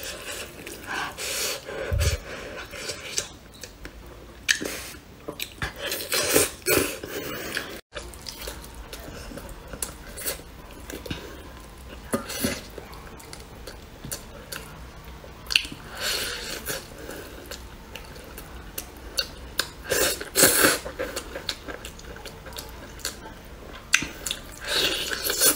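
Close-miked eating sounds: braised meat torn off the bone by hand, with wet chewing, lip-smacking and slurping in irregular bursts.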